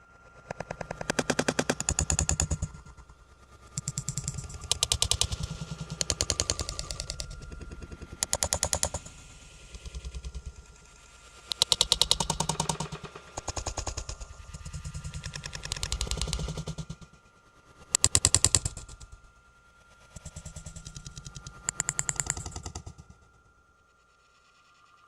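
Rapid clattering rattle in repeated bouts of about a second or two each, some louder than others, separated by brief lulls, over a faint steady high hum.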